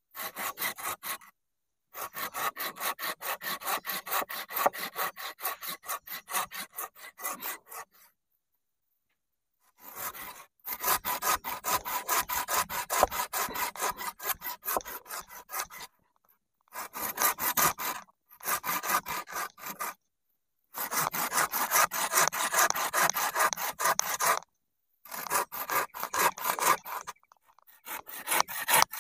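A dull blade being sharpened on a stone: rapid back-and-forth scraping strokes, about four or five a second, in several bursts with short pauses between.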